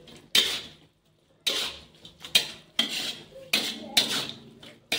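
A spatula scraping and knocking against a wok as vegetables and shrimp are tossed in a stir-fry. There are about six sudden, uneven strokes, with a short pause about a second in.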